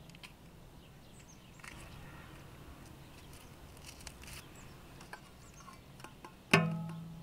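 A single sharp metal clank about six and a half seconds in, ringing with a clear pitched tone that fades over most of a second, like cookware being struck or set down. Faint short high chirps come before it.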